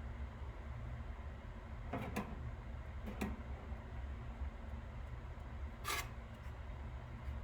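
A few light clicks and taps from small tools and parts being handled at a workbench: two close together about two seconds in, one a second later and a sharper one near six seconds, over a steady low hum.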